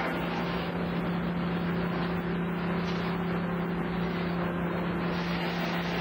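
Sawmill machinery running: a steady hum at one pitch under a dense, even rushing noise, with no change in level.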